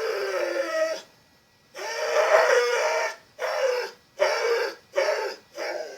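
A dog vocalizing in a string of about six drawn-out, wavering howl-like moans, the second the longest. It is 'talking' back to its owner.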